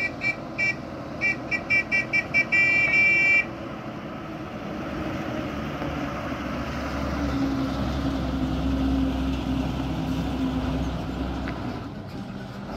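MSRTC bus horn sounding a quick run of short toots, about four a second, ending in a longer blast about three seconds in. Then the bus's diesel engine runs louder as it comes around the hairpin bend and passes close, and fades near the end.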